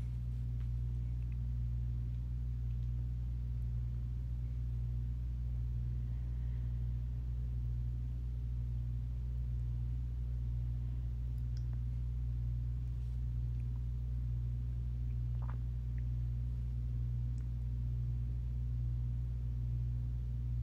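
Steady low hum of room tone, unchanging throughout, with a few faint scattered ticks.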